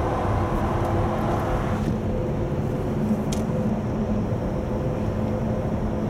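Steady road and engine noise heard inside a Honda Odyssey's cabin as it cruises through a road tunnel.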